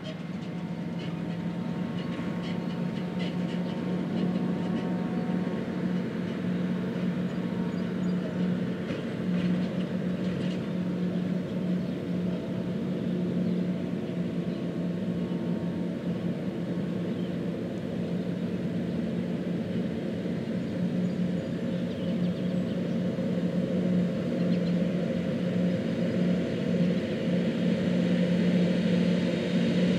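John Deere 8600 self-propelled forage harvesters chopping corn silage, working with tractors: a steady machinery drone with a constant low hum, growing somewhat louder near the end.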